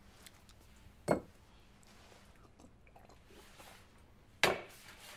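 Two short, sharp clicks, one about a second in and one near the end, over faint room tone: a medicine bottle and a water glass being handled.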